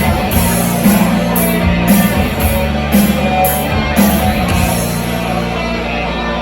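Loud rock music with electric guitar and a steady drum beat of about two strokes a second; the beat drops out a little after two-thirds of the way through.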